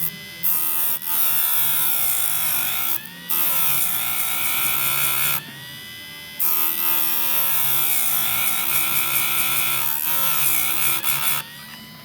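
Electric chainsaw-chain sharpener grinding the chain's teeth in several passes with short pauses between. The motor's hum drops in pitch under load during each pass.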